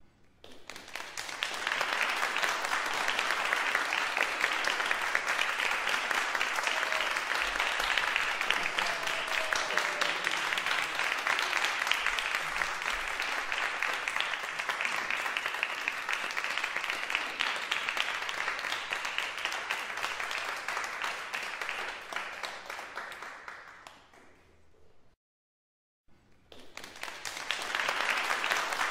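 A crowd applauding: dense, even clapping that swells in over a couple of seconds, holds steady, then fades away about 24 seconds in. After a second of silence, a second round of applause swells in near the end.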